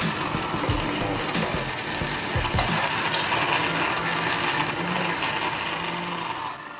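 Plastic countertop blender running, churning fruit and liquid into a shake.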